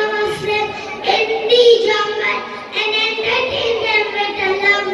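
Young children singing a melody in long held notes, with short breaks between phrases.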